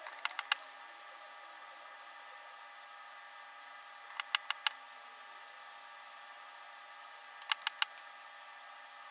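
Plastic photo developing tray being rocked to agitate the fixer, sped up. It gives a quick cluster of about four sharp clicks roughly every three seconds over a steady hum.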